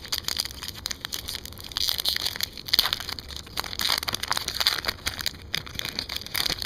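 Plastic wrapper of a hockey card pack crinkling and tearing as it is opened, a dense run of irregular crackles and rustles that grows busier about two seconds in.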